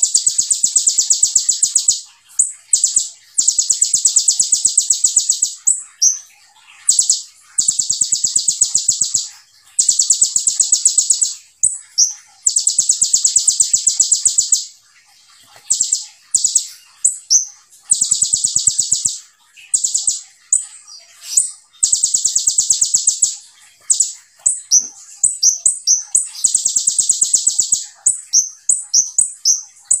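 Male Van Hasselt's sunbird (kolibri ninja) singing its rapid-fire 'tembakan' song: long, very fast high-pitched trills of one to two seconds each, repeated with short pauses, with quicker runs of varied chirps near the end.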